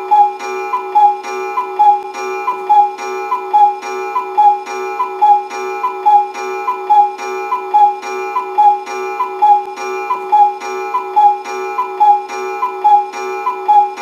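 Cuckoo clock calling "cuck-oo" over and over: a higher note then a lower note, repeating evenly about once a second over a steady held tone.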